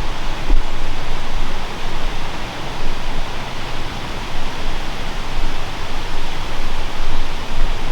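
Steady, fairly loud rushing hiss with irregular low rumbles, like outdoor wind buffeting the camera microphone.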